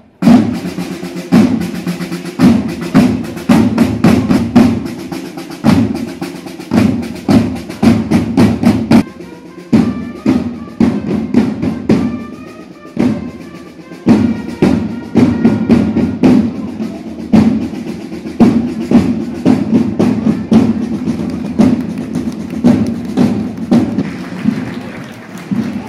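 A marching group of parade drummers playing a loud, rhythmic drum cadence with rolls. A few short high notes sound between about ten and thirteen seconds in.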